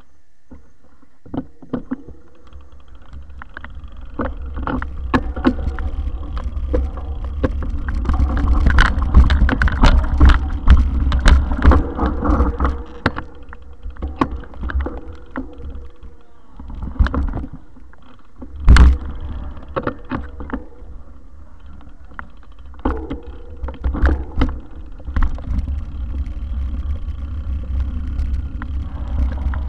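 Wind buffeting the microphone of a camera mounted on a moving mountain bike, with the bike's rattling and knocking over rough dirt trail. It is loudest about a third of the way in, with one sharp knock about two-thirds of the way through.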